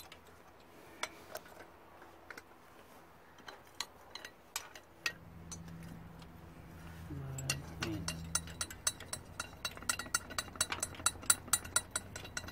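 Steel combination wrench clinking on the bolts of an engine's cylinder head cover as they are loosened: scattered metallic clicks at first, then quick, dense clicking over the last few seconds.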